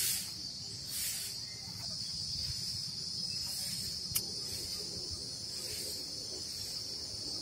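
Scissors cutting hibiscus stems and rustling the leaves: two short, hissy snips near the start and a sharp click about four seconds in. A steady high-pitched insect chorus runs underneath.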